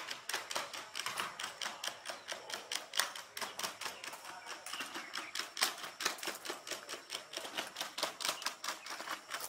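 Rapid, irregular clicking taps, several a second, from the hard feet of a Unitree robot dog striking stone steps as it walks on its front legs in a handstand.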